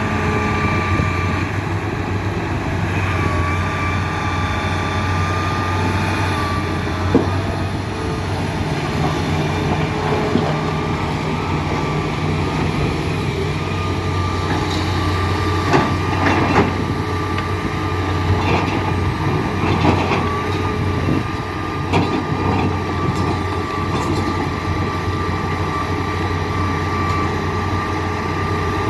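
Hitachi Zaxis 350 excavator's diesel engine running steadily under work, with a steady high whine over it and scattered metallic clanks and knocks, most of them in the second half.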